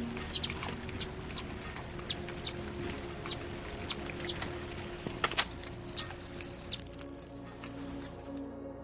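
Steady high-pitched insect chorus, with irregular sharp clicks and taps over it, breaking off about eight seconds in.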